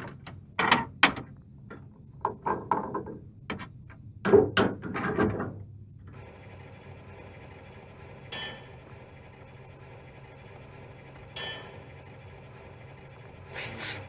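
Metallic clanks and rattles of a car's rear licence plate being handled, a cluster of sharp knocks over the first six seconds. Then a steady low hum with two sharp ringing metallic clinks a few seconds apart, and quick squirts of a spray bottle of glass cleaner start near the end.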